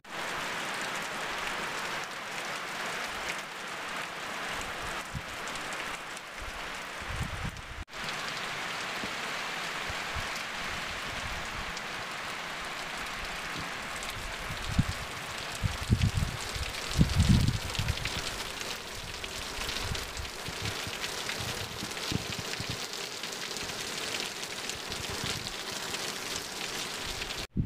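Steady rain falling on trees and fallen leaves, an even hiss, with a few low thumps on the microphone around the middle.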